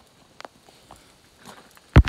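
Footsteps on a stony gravel path, with scattered sharp clicks of stones underfoot, then a heavy thump near the end.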